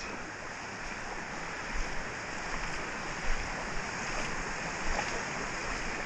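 Shallow creek water running and rippling over sandstone riffles and small cascades, a steady rushing.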